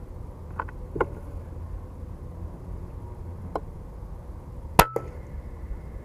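A single sharp shot from an FX Impact M3 PCP air rifle, near the end, with a few faint clicks before it over a steady low background rumble.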